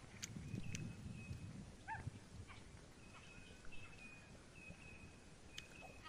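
Faint ambience of a grazing sheep flock on dry ground: a low rumble in the first second or two, scattered small clicks, a short call about two seconds in, and thin high tones later.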